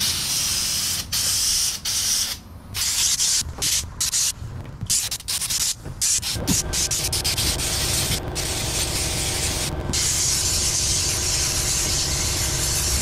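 Compressed-air paint spray gun hissing in short trigger pulls with brief gaps, then spraying without a break from about halfway. A steady motor hum comes in about halfway through.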